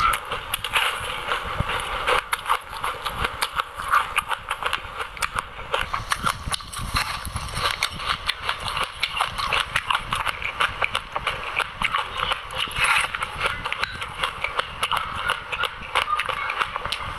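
Close-miked chewing of white sesame seeds and passion fruit: a continuous, dense crackle of tiny irregular crunches.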